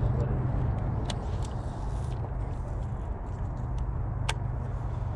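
A steady low rumble with a few sharp clicks, the loudest near the end, from a baitcasting reel being handled through a cast.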